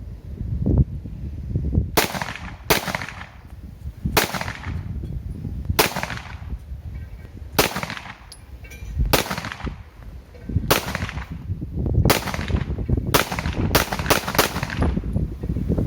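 Pistol gunshots at a range: about a dozen single shots, spaced one to two seconds apart at first and coming quicker near the end.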